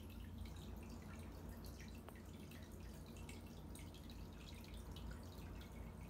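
Faint water trickling and dripping in a running aquarium, many small irregular drips, over a steady low hum.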